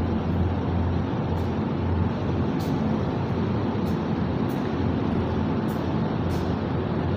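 Steady low mechanical drone of a closed broiler control shed's ventilation fans running, unchanging throughout.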